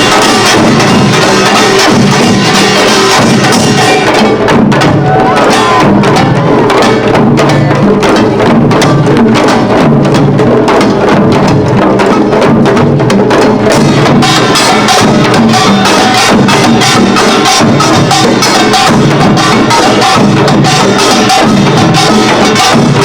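Korean pungmul percussion band playing Imsil Pilbong nongak, with kkwaenggwari small gongs and janggu and buk drums beating a loud, fast, driving rhythm. The strokes come thick and fast throughout and are most tightly packed in the middle.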